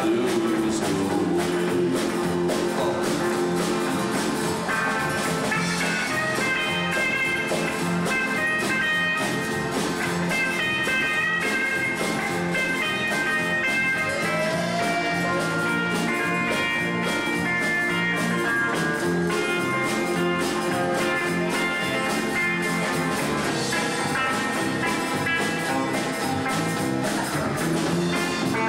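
Live country band playing an instrumental break, an electric guitar taking the lead over strummed acoustic guitar and drums.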